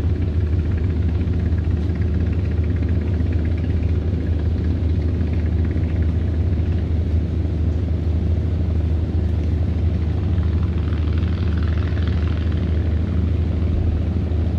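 A boat's engine running steadily at constant speed, a deep even rumble close by.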